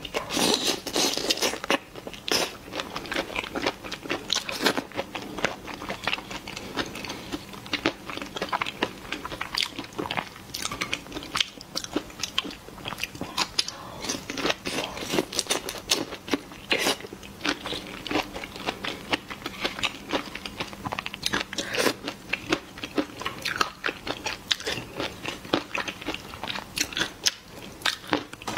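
Close-up crunching and chewing of chilli-sauce prawns: a fast, irregular run of crisp cracks as the crunchy prawn is bitten and chewed.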